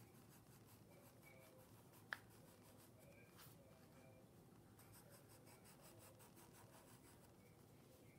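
Faint scratching of a wooden pencil drawing lines on paper on a clipboard, with a single sharp click about two seconds in.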